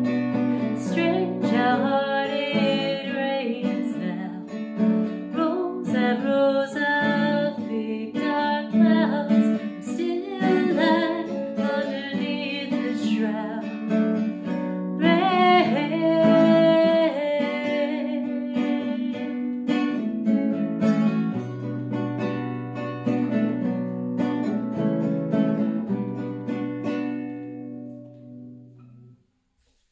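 A woman singing to her own nylon-string classical guitar. Near the end the song closes and the guitar's final chord rings and fades away.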